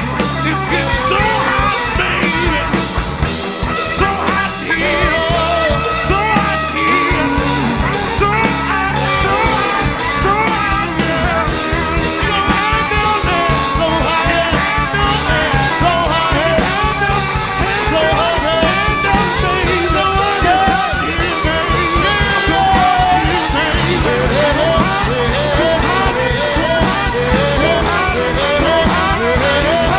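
Live band playing an upbeat rock song, with singing over a steady drum beat.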